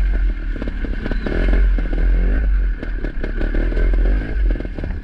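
Sherco 300 trials motorcycle engine running with the revs rising and falling, while rocks and gravel clatter and scrape under the tyres.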